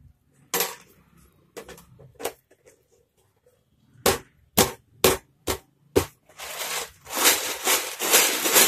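About eight sharp clicks of beads knocking together as beaded macrame cords are handled. A rasping rustle of cord being pulled and rubbed follows and grows loudest near the end.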